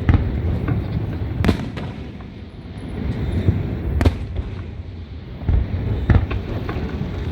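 Aerial fireworks bursting: several sharp bangs a second or two apart over a continuous low rumble of further explosions.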